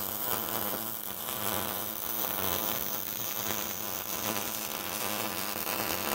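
Electric arc welder running a continuous weld bead, a steady buzzing crackle, as the tacked-in steel pipes are welded to the heat exchanger's end plate.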